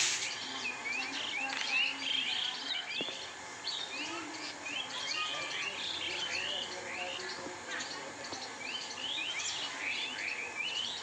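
Small birds chirping in a continuous chorus of short, quick notes, several overlapping at once.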